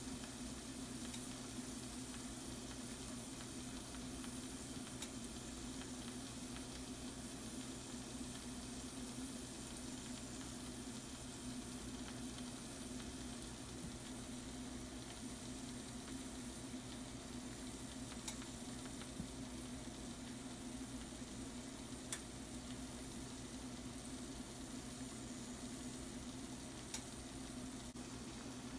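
Shrimp and sliced mushrooms sizzling steadily in a frying pan, with a faint click now and then.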